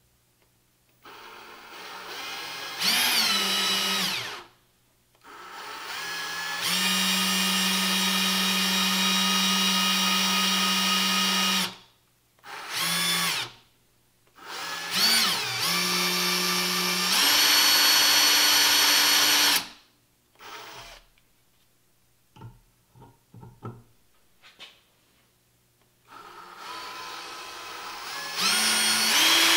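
18-volt cordless drill on its low-speed setting, driving an 11/64-inch cobalt bit into the steel of a rifle barrel through a dimpling jig to cut gas-block set-screw dimples. It runs in five separate trigger pulls, each whining up in pitch, holding steady for one to five seconds, then stopping. A few light clicks come in the pause near the end.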